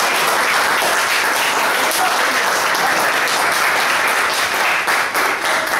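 An audience applauding: many people clapping at once in a steady, even wash of claps that carries on through the whole stretch.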